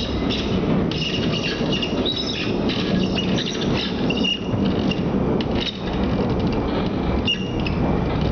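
Creaking of a Rusich metro car's body while the train runs: short, high-pitched squeaks come and go over the steady rumble of the train.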